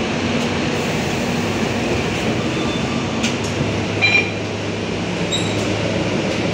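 Scania K230UB bus idling, heard from inside the cabin: a steady low engine hum under an even air-conditioning hiss. A short electronic beep comes about four seconds in.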